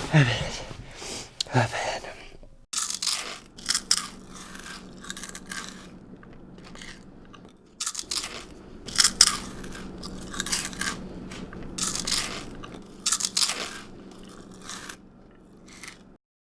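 Loud, irregular crunching, like someone chewing and biting crunchy food, in bursts over a low steady hum. It is preceded in the first two seconds by a voice-like wail that falls in pitch.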